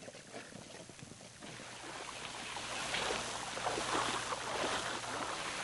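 Water splashing and sloshing, as of people wading through a stream. The noisy wash builds after about a second and a half, with a faint steady low hum under it.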